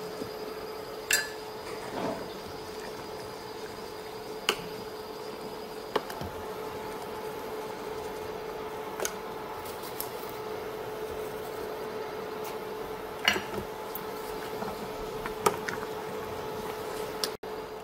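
A stainless steel pot of leafy green soup boiling on the cooktop with a steady bubbling hiss and a steady hum underneath, while a spoon and a metal ladle clink against the pot about seven times as seasoning is added and the greens are stirred.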